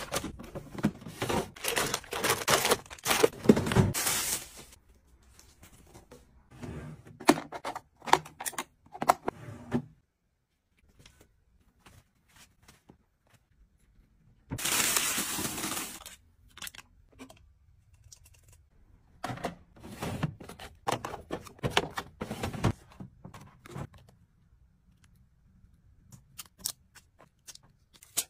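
Packaging being crinkled and torn open in several irregular bouts, with one longer tearing burst midway, between light clicks and knocks of items being handled and set down.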